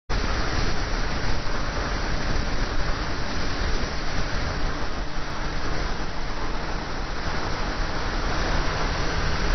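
Wind rushing over the microphone of a camera on a moving motorcycle, a loud steady rush with the motorcycle's running and road noise mixed in.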